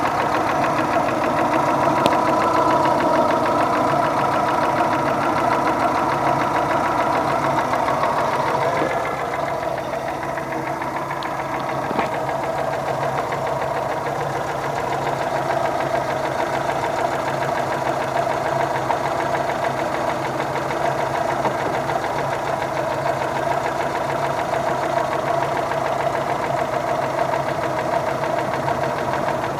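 Engine idling with a steady, rapid knock from inside it: the engine knock being demonstrated. The sound drops slightly in level about nine seconds in and then runs on steadily.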